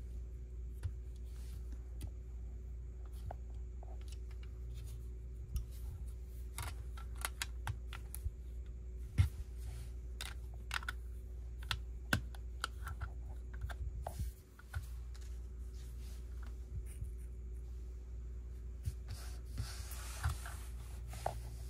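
Plastic Lego pieces clicking and tapping as they are handled and pressed together: irregular small clicks, busiest in the middle, with a brief rustle near the end.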